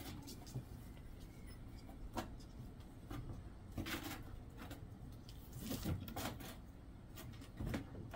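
Kittens playing: light scuffles and taps of paws on a floor mat, with a handful of louder knocks spread through as they pounce and bat at things.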